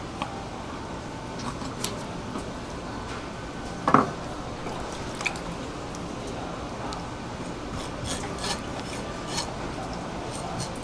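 Kitchen knife tapping and scraping on a plastic cutting board as eel is filleted, with one louder knock about four seconds in and a run of small clicks near the end, over steady background noise.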